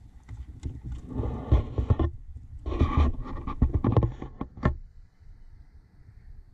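Rubbing and clicking handling noise from the camera being lifted and moved, in two bursts with a pause between them, over a low rumble of wind on the microphone.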